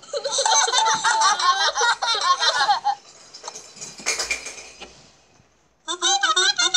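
Cartoon voice sound effects from a children's story app: animated characters giggling and chattering in quick, high-pitched bursts, with a second burst near the end.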